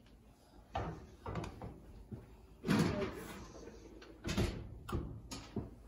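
A metal loaf pan set down on cast-iron gas-stove grates and the oven door shut: a series of knocks and clunks, the loudest nearly three seconds in.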